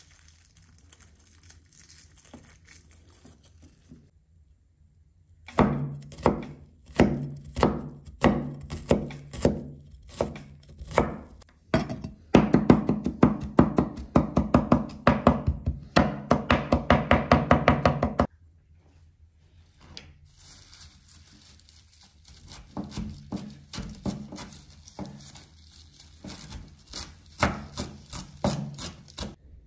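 Chef's knife chopping on a wooden cutting board. Faint rustling of garlic being peeled gives way to scattered chops through a garlic clove, then a fast run of rapid mincing chops that stops sharply about two-thirds of the way in. After a short lull come lighter chops through fresh parsley.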